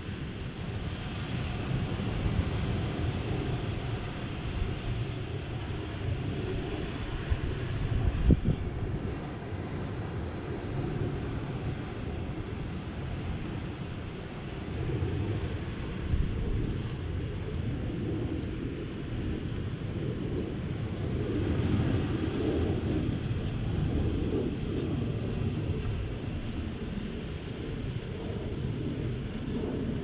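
Wind rumbling steadily on the camera microphone, with one sharp knock about eight seconds in.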